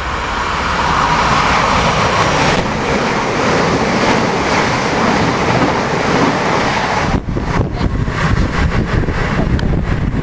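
Southern Class 377 Electrostar electric multiple unit running through the station at speed beside the platform, a loud steady rush of wheels and air that swells from about a second in. About seven seconds in the sound breaks off abruptly and gives way to wind buffeting the microphone over the noise of another approaching train.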